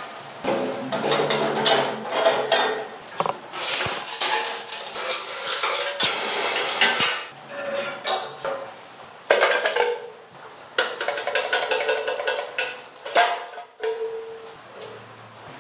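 Light metallic clinks, knocks and rattles of steel parts and hand tools being handled and fitted onto a welded steel-tube frame, coming irregularly throughout.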